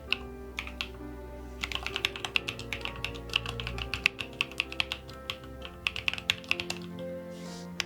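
Typing on a Chosfox CF81 mechanical keyboard with Voyager tactile switches: quick runs of key clacks that pause briefly near the start and again near the end, over background music.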